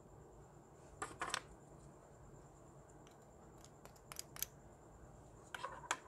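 Sharp little plastic clicks and taps from small glitter pots being handled and opened: a short cluster about a second in, several between three and four and a half seconds, and another near the end.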